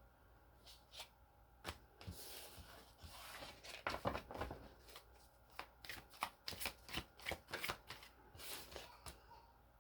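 Tarot deck being shuffled and handled by hand: a run of quick card flicks and rustles, busiest from about two seconds in until near the end.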